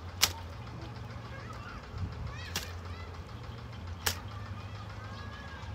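Hands working in wet mud and shallow water while groping for fish, with three sharp slaps or splats, over a low steady hum.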